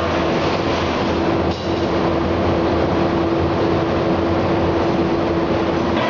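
Steady drone of forge-shop machinery: a continuous rumbling hum with one constant mid-pitched tone held throughout, and no distinct hammer blows.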